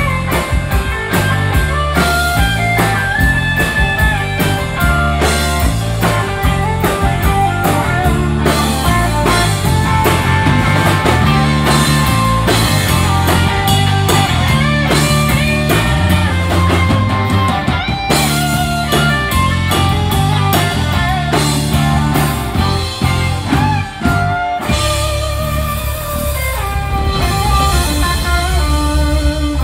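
Live rock band playing: an electric guitar lead with bending notes over bass guitar and drum kit, with a brief drop in loudness near the end.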